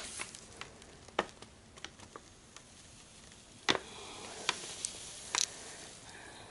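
Faint, scattered clicks and crackles of a sheet of lined notebook paper being handled, with a sharper crackle just under four seconds in and a light rustle after it.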